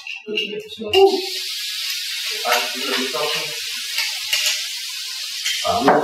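Chili sambal sizzling as it hits a hot wok on a gas burner. The frying hiss starts about a second in and carries on steadily.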